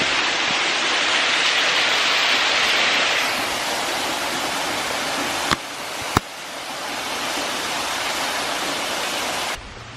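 Steady rush of water from a small waterfall running after rain. The water sound changes abruptly a few times, with two sharp clicks a little after halfway.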